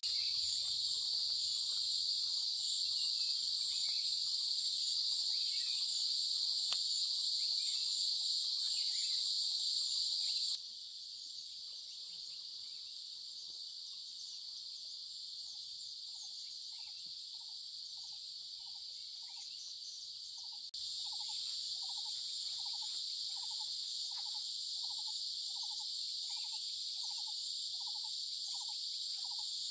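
Steady, shrill chorus of insects. It drops suddenly in level about ten seconds in and comes back about twenty seconds in. From about sixteen seconds in, a short call repeats a little more than once a second.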